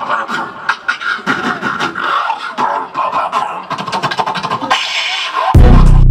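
Beatboxing into a handheld microphone: a fast run of sharp clicks, hisses and short vocal bass and snare sounds. About five and a half seconds in, it gives way to a loud, deep bass hit as a music track starts.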